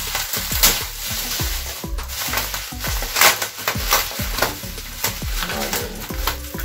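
Plastic packaging and bubble wrap being handled and pulled open by hand: a dense, irregular crackling and rustling with sharper crinkles. Background music plays underneath.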